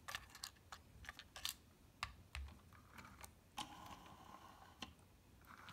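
Plastic Plarail toy train cars clicking and tapping as they are handled and set down on a wooden floor, with a brief scraping rustle about two-thirds of the way in.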